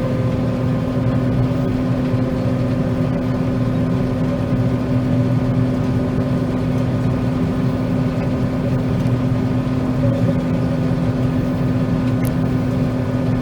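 A John Deere 9500 combine running steadily while it harvests soybeans, heard from inside the cab. It makes an even drone with a constant hum.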